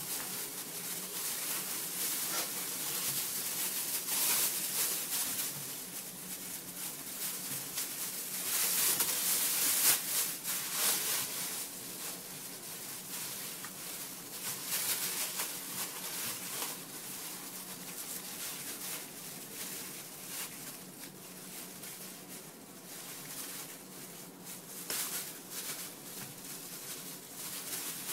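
Thin plastic bag crinkling and rustling as hands work it off frozen chicken wings in a bowl of water. The rustling comes and goes, loudest about ten seconds in.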